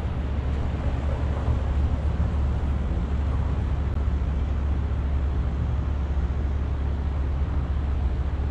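Steady low rumble of an idling truck engine, a constant hum with a noisy haze over it.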